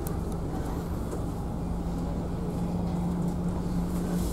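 Steady low drone of a ferry's engines heard inside the passenger cabin, with a constant hum.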